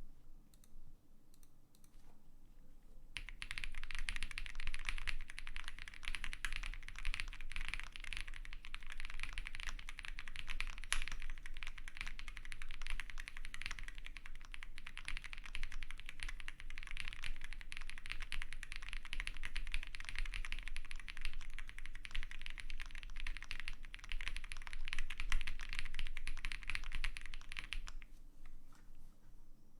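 Continuous typing on a custom Owlab Spring mechanical keyboard with lubed and filmed Kailh Polia switches, FR4 plates and GMK keycaps: a dense run of key clacks that starts about three seconds in and stops a couple of seconds before the end.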